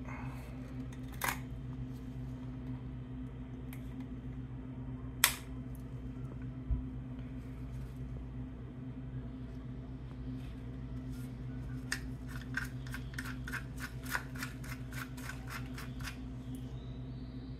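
Metal clicks from a handheld oil filter cutter being worked and handled, with a sharp click about five seconds in and a run of quick ticks, about four a second, near the end. A steady low hum runs underneath.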